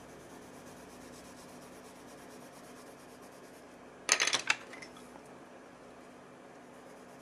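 A faint steady hum, then about four seconds in a brief clatter of several quick knocks: wooden colored pencils knocking against each other and the desk as they are handled.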